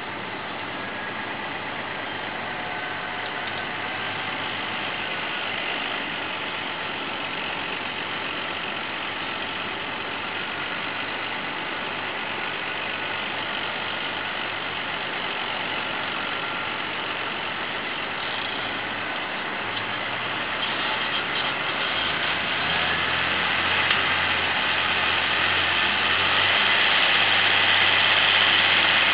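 Massey Ferguson 6490 Dynashift tractor's diesel engine running steadily under load as it pulls a mounted reversible plough through dry soil, getting louder over the last third as the tractor draws nearer.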